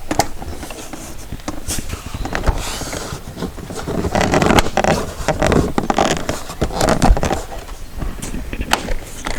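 Plastic door trim panel being pressed back onto a car door: repeated knocks and scraping of plastic, with the panel's bullet-shaped retaining clips popping into their holes.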